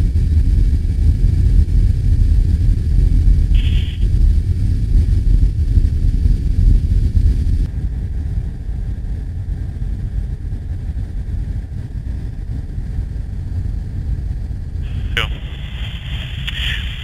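Deep, steady jet-engine rumble of a C-17 Globemaster III transport. Near the end a thin, radio-like voice comes in over it.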